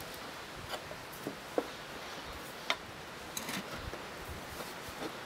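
Open-ended spanner tightening a steel nut against a washer on a threaded rod: a few irregular light metallic clicks as the spanner is set on the nut, swung and refitted.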